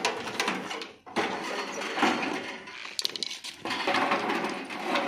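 Sheet-metal casing of a gas water heater being handled and worked loose: irregular scrapes, knocks and clicks of metal panels and a screwdriver, with a quick run of clicks about three seconds in.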